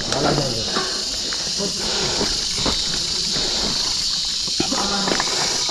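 Insects droning steadily at a high pitch, with a mountain bike knocking and rattling now and then over a rocky trail and a few brief voice sounds.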